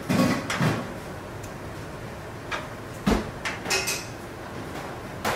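Steel saucepans clattering and knocking against the cast grates of a gas range as they are handled and shifted, in scattered knocks, the loudest with a dull thud about three seconds in. A steady hum runs underneath.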